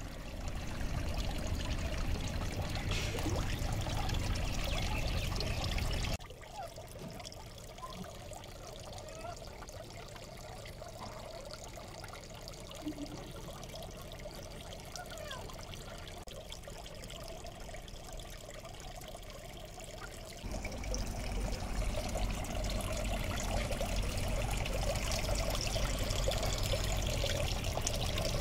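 Water pouring steadily from the PVC outlet pipes of a pond filter and splashing into a small koi pond. It drops noticeably quieter about six seconds in and comes back louder about twenty seconds in.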